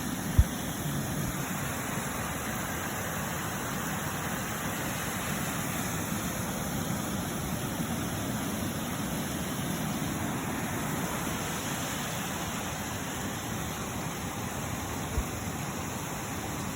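Steady rushing noise outdoors, with a brief knock just after the start and another near the end.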